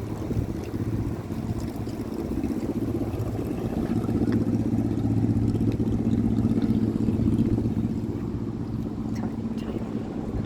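A boat engine droning steadily, growing louder toward the middle and easing off near the end, with wind buffeting the microphone.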